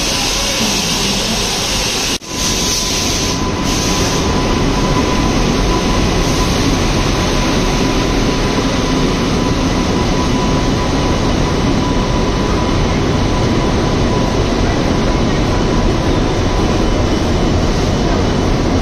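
Electric-hauled passenger train rolling past close by along the platform: a steady, dense rumble and rush of wheels and coaches, with a faint steady whine. The sound drops out for a moment about two seconds in, and the train noise then stays steady and loud.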